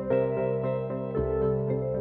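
Background music: gentle ambient keyboard melody with a steady bass line.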